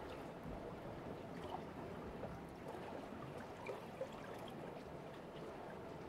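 Calm sea water lapping and gurgling among shoreline rocks: a steady gentle wash with small scattered drips and splashes, two of them a little louder, about a second and a half in and near four seconds.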